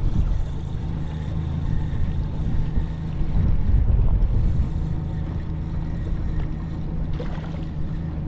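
Small tiller outboard motor idling with a steady low hum, with wind buffeting the microphone.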